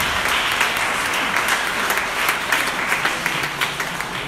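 Audience applauding: many hands clapping together in a dense, steady patter that begins to ease off near the end.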